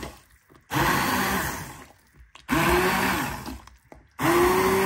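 Braun immersion (stick) blender puréeing cooked pumpkin, carrot and potato in a pot of soup, switched on and off in three short bursts. Each burst starts with a rising motor whine, churns through the liquid, then winds down.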